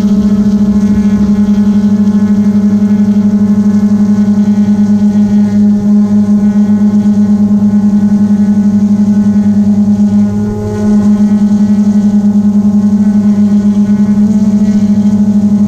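Drone's motors and propellers making a loud, steady hum close to the microphone, with a short dip and wobble in pitch about ten seconds in.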